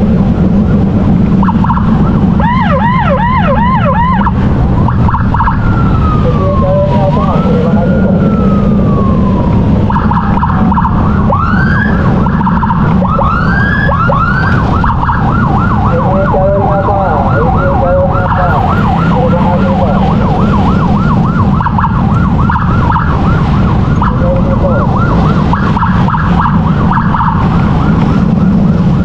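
Electronic emergency siren changing modes: a fast warble, then a slow rising-and-falling wail, a few separate whoops, and from about ten seconds in a rapid, steady yelp. Under it runs the steady low rumble of a moving motorcycle.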